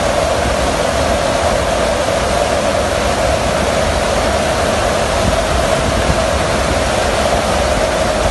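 Loud, steady rush of airflow and engine drone inside a military transport aircraft's cargo hold with the rear ramp open in flight, with a constant mid-pitched hum under the rushing noise.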